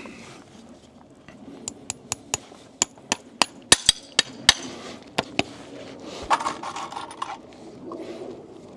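Farrier's driving hammer tapping horseshoe nails through a front shoe into the hoof wall: about a dozen sharp metallic taps in quick, uneven runs, which stop about halfway through.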